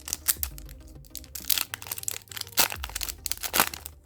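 Yu-Gi-Oh booster pack wrapper and cards being handled: a run of crinkling and sharp crackles.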